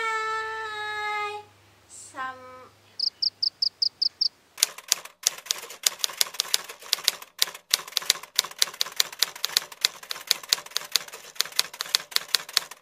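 Typewriter key-clicking sound effect, rapid and irregular, starting about four and a half seconds in. Before it come a short, high, held vocal cry, a brief falling glide and a quick run of about eight high beeps.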